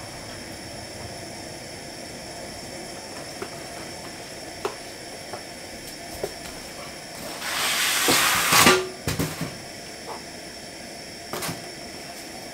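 Propane camp burner running with a steady hiss under a pan. A few light knocks come through it, and about seven seconds in a louder rushing noise lasts about a second and a half.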